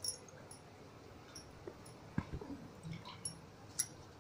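Washed drumstick (moringa) leaves dropped by hand into an aluminium pressure cooker with water in it: faint soft rustling with a few light taps and clicks.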